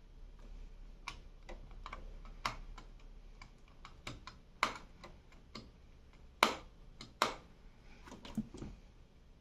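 Irregular clicks and taps, a dozen or so spread unevenly, with three louder, sharper clicks around the middle.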